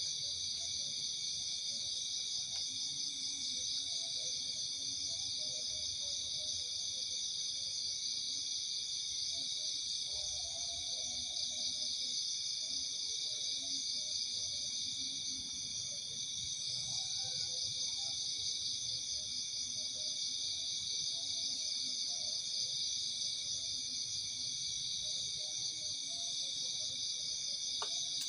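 Steady night-time chorus of insects such as crickets: several high-pitched trilling tones overlapping without a break. Faint, irregular lower calls sound underneath.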